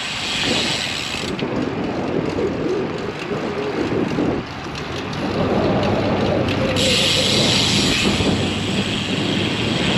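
Wind buffeting the microphone of a moving road bicycle, a steady rumbling rush in gusty wind, with a brighter hiss in the first second and again from about seven seconds in.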